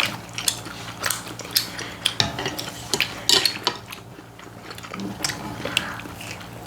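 Cutlery clinking against plates and bowls during a meal, a run of separate sharp clicks and taps.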